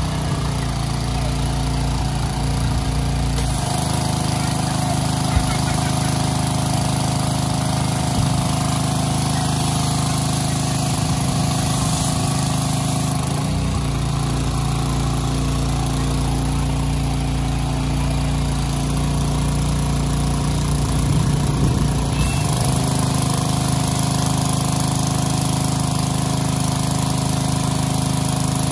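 Small petrol engine of a pressure washer running steadily under load, with a steady high hiss over it. The low note of the engine shifts slightly twice.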